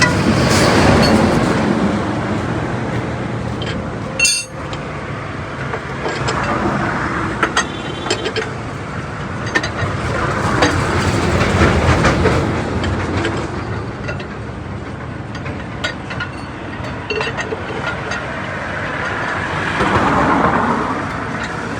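Vehicles passing on the road, their noise rising and fading several times, with a few short metallic clicks and clinks in between.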